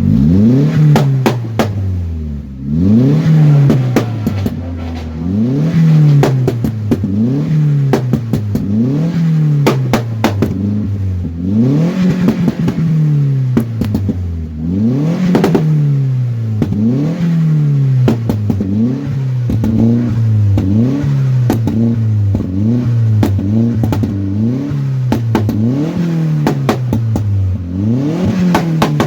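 Skoda vRS 1.8-litre turbo petrol four-cylinder free-revving through its exhaust in quick blips, the engine note rising and falling about every one and a half to two seconds. Sharp pops and crackles sound from the exhaust as the revs fall, on the overrun that throws flames.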